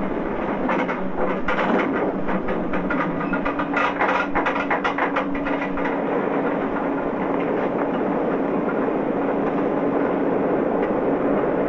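Cement-works machinery clattering and rattling as chalk and clay tumble and pour through it. After about six seconds the clatter settles into a steady churning rush with a faint low hum.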